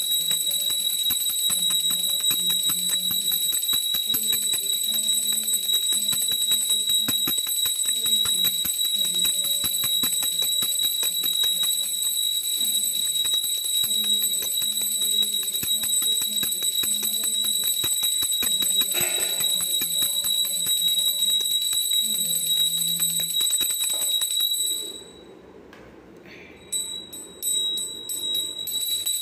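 A puja hand bell rung rapidly and continuously for aarti, its steady high ring over a slow devotional melody. Both stop abruptly about 25 seconds in, followed by a few faint knocks.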